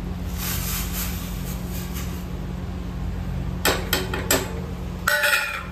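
Kitchen clatter while a meal of oats is prepared: a few sharp clinks of dishes and utensils, then a short scraping, rattling burst near the end, over a steady low hum.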